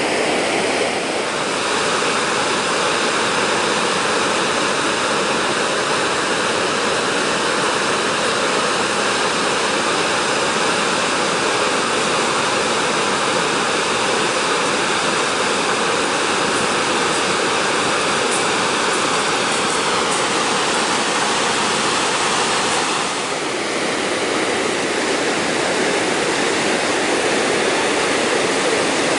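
Gullfoss waterfall, a large glacial-river waterfall, with its water crashing into the canyon as a loud, steady rushing roar. The roar dips slightly twice.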